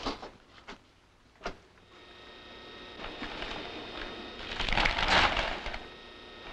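An ice machine being switched on: a few clicks, then its motor starting up with a steady hum about two seconds in, and a loud rushing, rattling noise around five seconds in.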